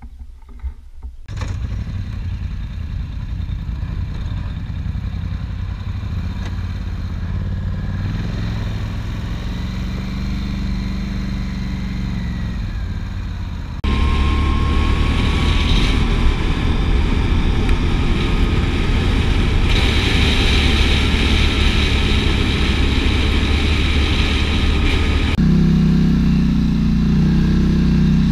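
Quad bike (ATV) engine running while riding, with rushing noise on top. The sound changes abruptly several times, and a louder, steadier low engine note takes over near the end.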